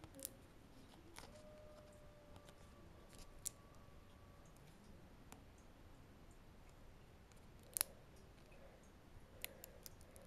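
Near silence with a few scattered small clicks and taps from a thin plastic screen protector sheet being handled and its cut-out holes poked out; the loudest click comes about eight seconds in, with a quick cluster near the end. A faint steady tone sounds from about one to four and a half seconds in.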